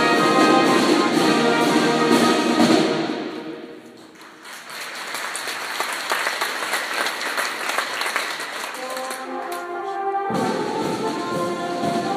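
Brass-and-drum marching band playing, its music dying away about three seconds in. The audience applauds for several seconds, then the brass comes back in on low notes and the full band plays again near the end.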